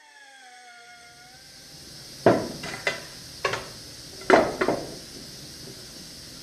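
Sharp metal-on-metal strikes, six of them in two clusters about two and four seconds in, as a steel seat-rail bracket is knocked into place on an engine mount. Before them a faint falling whine fades away.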